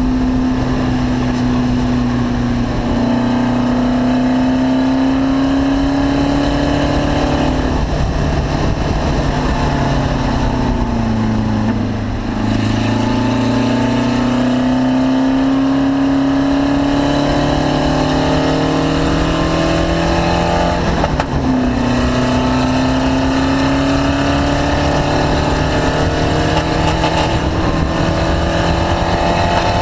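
Race car engine running hard on track, climbing in pitch through the gears with drops at the shifts. About twelve seconds in it falls away as the car slows, then it pulls up again, with another shift about twenty-one seconds in.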